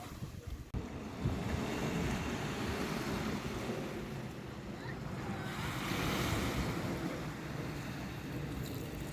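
Sea waves washing onto the shore, with wind buffeting the microphone in gusts; the wash swells to its loudest about six seconds in.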